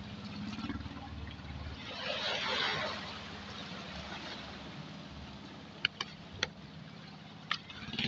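A small engine running steadily with a low hum, with a brief rushing hiss about two seconds in and a few sharp clicks near the end.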